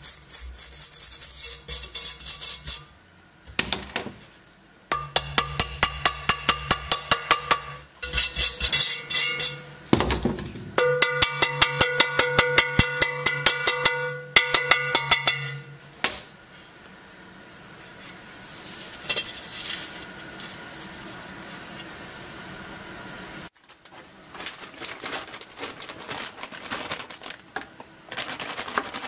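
A wire brush scrapes rust inside an M35 steel helmet shell. Then a small hammer taps the inside of the helmet rapidly in two long runs, and each tap makes the steel shell ring. Lighter scraping and clicks follow.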